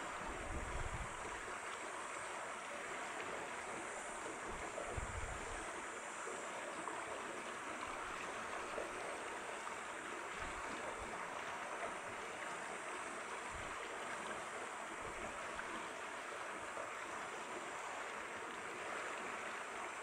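Stream water running steadily over rocks, a constant rushing murmur. A few brief low rumbles of wind on the microphone break in near the start, about five seconds in and again past the middle.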